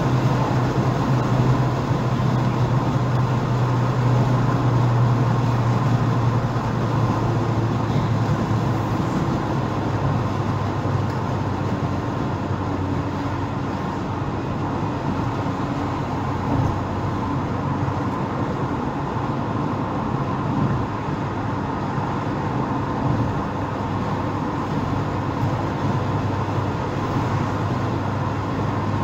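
Steady road noise heard from inside a car driving on a wet highway: a low engine hum under the hiss of tyres on the wet road.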